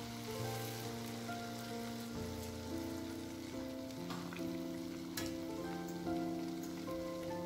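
Pua batter cakes deep-frying in hot oil in a steel pan, a steady sizzle, under instrumental background music of held notes.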